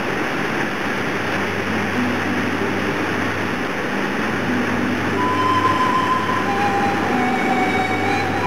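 Waterfall rushing: a steady, even wash of water noise. A few faint thin tones join about halfway through.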